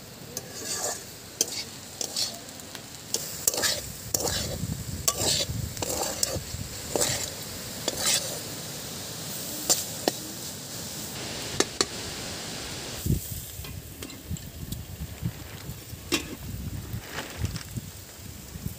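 Metal spatula scraping and stirring sliced bitter gourd frying in oil in a metal kadai, with repeated scrapes and clinks against the pan over a steady sizzle. The scraping thins out over the last few seconds.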